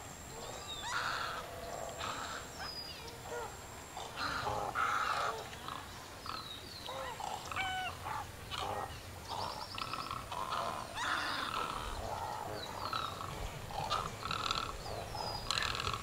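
A busy chorus of wild bird calls: harsh squawks overlapping with whistled chirps and short rising and falling notes, one after another without a break.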